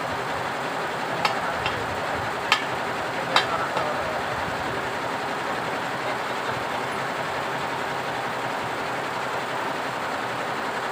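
A few short, sharp metallic clinks in the first few seconds as Vespa engine parts and tools are handled, over a steady background rush of noise.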